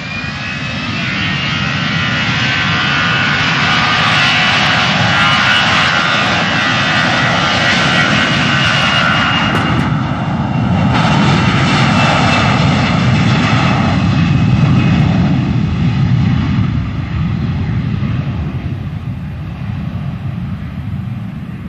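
Jet airliner's engines on the takeoff roll: a rising whine as they spool up to takeoff thrust, loud through the middle, then fading as the aircraft accelerates away down the runway.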